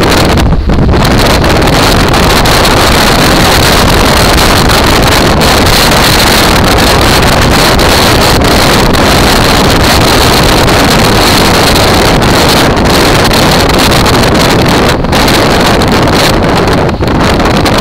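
Loud, steady wind rush buffeting the microphone of a camera on a moving motorcycle, with the bike's engine and road noise mixed in underneath.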